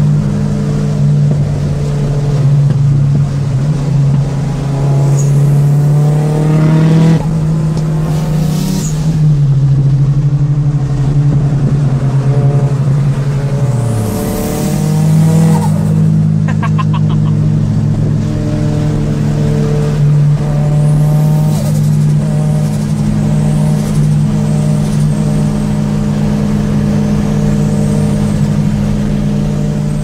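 Turbocharged Nissan 200SX S14 running at road speed, its engine note rising and falling with the throttle and a faint turbo whistle over it. A little past the middle the note drops sharply, and a brief rapid chatter of turbo flutter follows on the lift-off.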